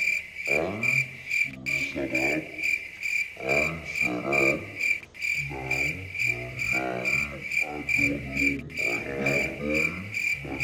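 A high-pitched chirp repeats evenly, about four times a second, like an insect's call. A man's voice rises and falls underneath it without clear words.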